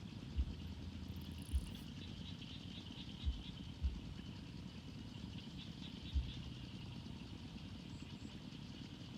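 Rural outdoor ambience: a steady high-pitched trilling drone with a few dull low thumps scattered through it, the loudest moments, and a faint low hum that comes and goes.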